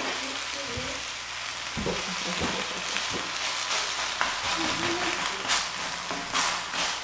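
Kimchi pancake frying in plenty of oil on a round griddle, with a steady sizzle. A metal spatula scrapes and clicks against the griddle now and then as it works under the pancake.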